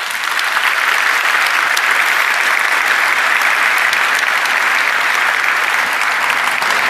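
Large audience applauding: dense, steady clapping that swells up in the first half second and holds.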